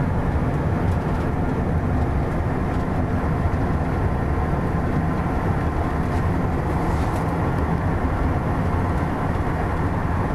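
A road vehicle driving down a mountain road: a steady, deep drone of engine and tyre noise, unchanging throughout.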